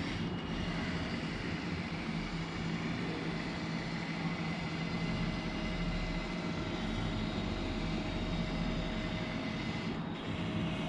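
Flatbed scanner running a scan: a steady mechanical hum with faint, thin high whining tones held throughout.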